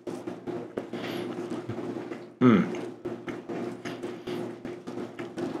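Latex-gloved fingers rubbing and crumbling a filled nut pastry, a dense run of small crackles over a steady low hum. About two and a half seconds in there is a loud, brief sound that slides down in pitch.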